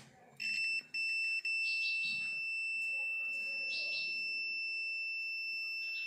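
Sanwa CD771 digital multimeter's continuity beeper giving a steady high-pitched beep as its probes touch a refrigerator compressor's common and start-winding terminals, the sign of an unbroken winding reading about 33 ohms. The beep cuts out twice in the first second or so as the probe contact flickers, then holds steady.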